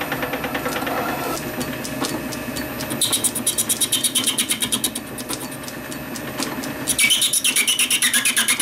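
Metal lathe running with a steady hum as a sharp tool faces the hacksawn end of a brass bar held in a three-jaw chuck. Two spells of cutting, about three and seven seconds in, add a rapid, even, high-pitched rasp.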